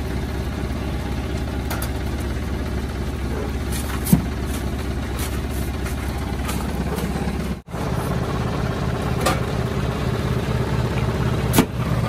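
Delivery truck's engine idling steadily, with a few sharp knocks over it.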